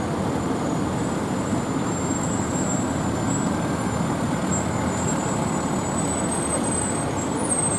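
Diesel engine of a fire engine running steadily as the truck rolls slowly past close by.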